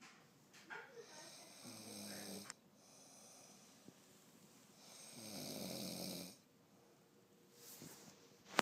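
Snoring from a sleeper: two drawn-out snores about four seconds apart, with a softer breath near the end, then a sharp click at the very end.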